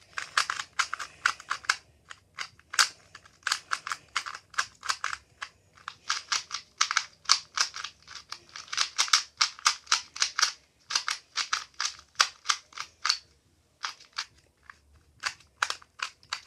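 A 2x2 puzzle cube's plastic layers clicking as they are turned quickly while it is being solved, several clicks a second in runs, with a short pause about 13 seconds in.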